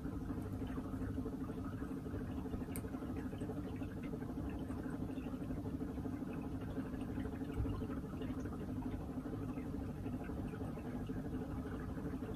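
Quiet room tone: a steady low hum, with a few faint ticks.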